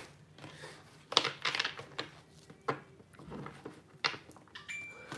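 Tarot cards being shuffled by hand, in a few short bursts of card noise.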